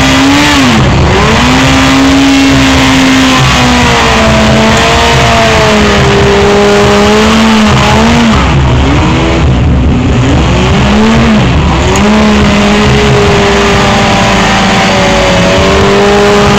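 Motorcycle doing a stationary burnout: the engine is held at high revs and dips and rises again several times, over the loud hiss and squeal of the rear tyre spinning against the pavement.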